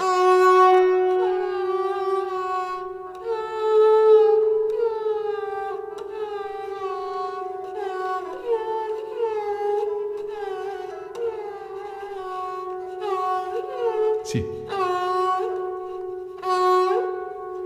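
Sarangi played with the bow: a slow melodic phrase of notes that slide and glide into one another over a steady held lower note. Its gut main strings are bowed, with its thin steel sympathetic strings beside them.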